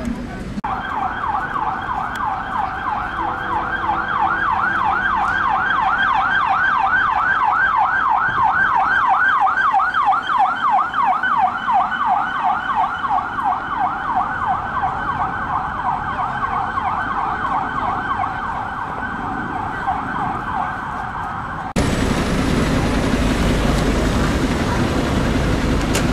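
Siren of an unmarked Met Police Ford Mondeo saloon on a fast yelp, sweeping up and down about four times a second. It grows louder towards the middle and fades as it passes. Near the end it cuts off abruptly to the steady rumble of street traffic.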